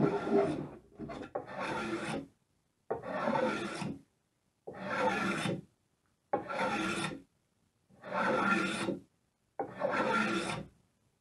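Hand plane cutting shavings from the edge of a plywood centerboard in repeated push strokes, each lasting about a second, about one every one and a half seconds.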